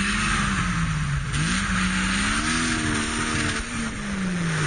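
Modified off-road 4x4's engine revving as it works over a dirt mound: the pitch climbs, eases off about a second in, climbs again and holds, then drops away near the end.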